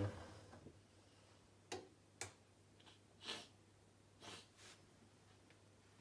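Near silence broken by about five short, faint clicks and taps, spread unevenly across a few seconds.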